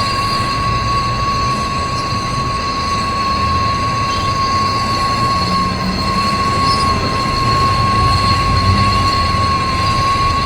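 Steady mechanical running noise with a constant high-pitched whine and a low rumble underneath.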